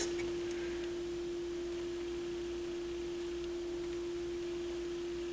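A steady hum at a single pitch, held unchanged, over faint background hiss.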